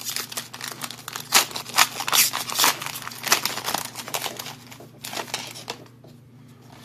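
Foil wrapper of a Topps baseball card pack being torn open and crinkled by hand, a dense crackling that dies down after about five seconds.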